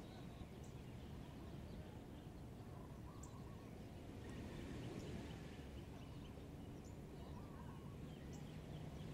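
Faint outdoor ambience: a low steady rumble, with distant birds chirping and calling now and then.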